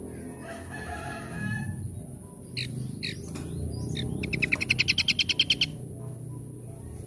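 Birds singing: a drawn-out call, then several short sharp chirps, then a loud, fast, even trill of about a dozen notes lasting a second and a half.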